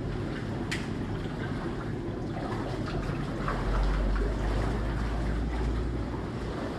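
Steady low rumble of the cooking burners under the wok and rice pot, swelling for a couple of seconds midway, with a metal utensil clinking on a pot about a second in.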